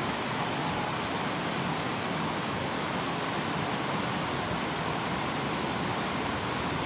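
River water rushing steadily, an even hiss with no rhythm, with a couple of faint clicks near the end.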